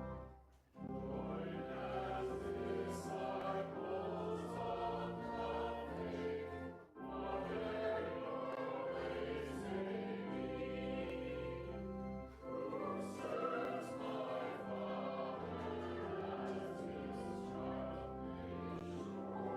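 Organ and congregation singing a hymn, with steady low bass notes under the voices and short breaks between phrases about every six seconds.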